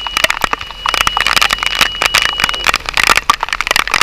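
Storm wind buffeting the microphone on a sailboat, a dense irregular crackle, with a steady high tone that stops about two and a half seconds in.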